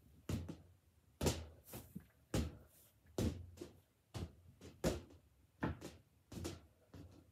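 A rubber party balloon being tapped upward with the fingers, giving about ten short hollow thumps at roughly one a second.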